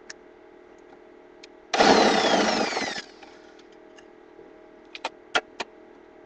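A handheld power tool runs in one burst of about a second, with a falling whine, and a few sharp clicks follow near the end.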